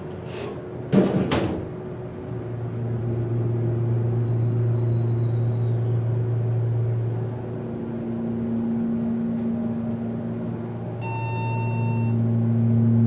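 Montgomery KONE hydraulic elevator's pump motor running with a steady low hum as the car rises, after a few knocks and a thump about a second in. About 11 seconds in, a short electronic chime sounds as the car reaches the next floor.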